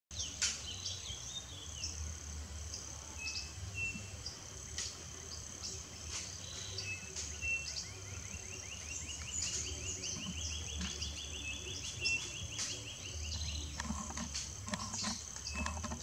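Tropical forest ambience: a steady high-pitched insect drone with short bird chirps and, in the middle, a long fast trill that rises and then holds. Scattered sharp clicks and rustles sound throughout.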